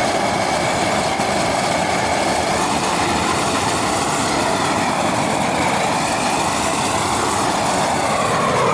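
Propane weed torch burning with a loud, steady rushing noise, which cuts off sharply at the very end.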